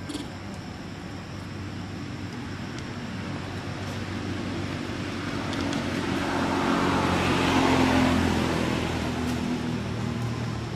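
A motor vehicle passing by: its engine hum and tyre noise grow louder, peak about seven to eight seconds in, then fade.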